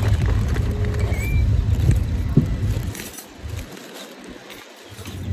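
Wind buffeting the microphone in gusts, easing off about three seconds in and picking up again near the end, with a plastic shopping bag rustling and a few small clicks.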